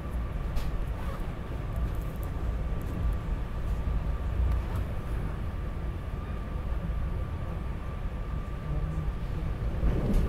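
Cabin noise of a SEPTA Regional Rail electric train under way: a steady low rumble with a thin steady whine above it and a few faint clicks.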